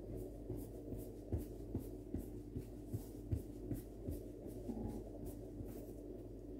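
Soft yeast dough for paska kneaded by hand on a floured board: a run of soft, evenly spaced puffs and thuds, about two or three a second, over a steady low hum. The baker takes this soft 'puff, puff' as the sign of a good, lively dough.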